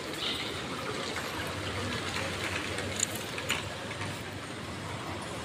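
Pedestrian street ambience picked up on a phone microphone while walking: a steady rushing hiss, with two short clicks about three seconds in.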